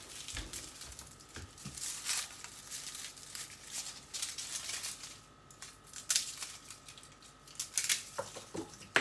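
Dry, papery garlic skins crinkling and crackling as garlic cloves are broken off the bulb and peeled by hand, in a run of small irregular crackles.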